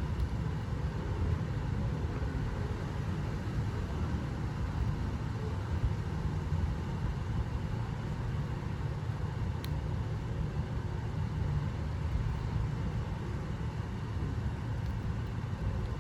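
A steady low rumble of outdoor background noise, with a faint click about ten seconds in.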